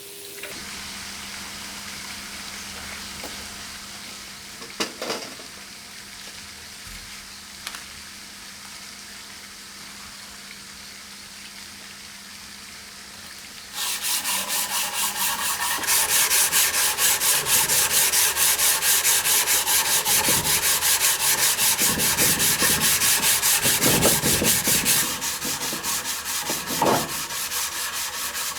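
Steel knife blade being sanded with abrasive. About halfway through, a loud, rapid, rhythmic rasping starts suddenly, after a quieter stretch of steady hiss and low hum.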